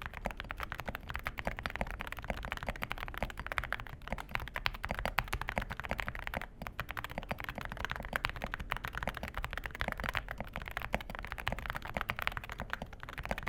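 Fast typing on an Aula F65 mechanical keyboard fitted with stock, factory-lubed Akko Rosewood linear switches: a continuous stream of keystrokes with a deep, thocky sound.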